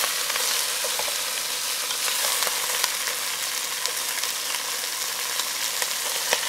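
Catfish pieces sizzling steadily in hot oil with browned shallots in a pot. Scattered light clicks come from wooden chopsticks moving the fish against the pot.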